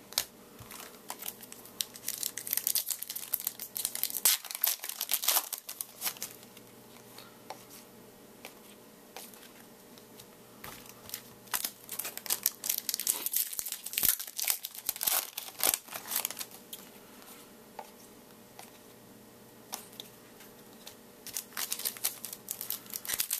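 Foil card-pack wrappers being torn open and crinkled, with cards handled, in three spells of crackling separated by quiet pauses.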